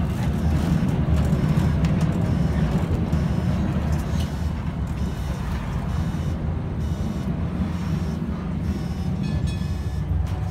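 Steady low rumble and rattle of a vintage tram running along its rails, heard from inside the wooden car.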